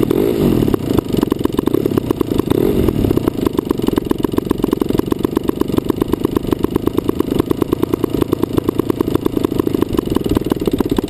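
DLE 55cc single-cylinder two-stroke petrol engine of a large model plane running. About a second in it drops back to a low idle, each firing pulse heard separately in a quick, even rhythm.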